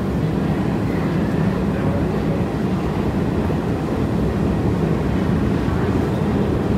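Steady low hum of a New York City subway E train standing at an underground station platform, even in level with no strikes or changes.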